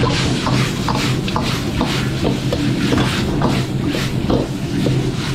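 Stir-frying in a wok on a commercial wok range: a steady low hum and rushing noise from the burner, with a metal spatula scraping and knocking against the wok many times in an uneven rhythm.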